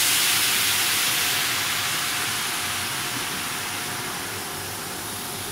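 MISSILE M5S CNC router's spindle milling a white plastic sheet: a steady thin whine under a loud hiss that slowly fades.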